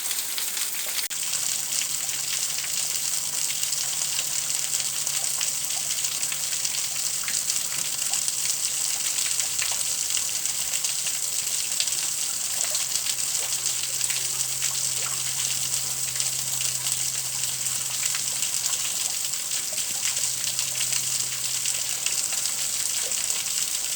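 Steady rushing of a waterfall, with a few faint scattered crackles from a campfire of wet wood.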